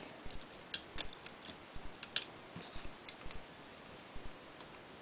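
Faint, scattered small clicks and taps of a plastic Transformers Animated Deluxe Swindle action figure being handled, its parts being moved and fitted.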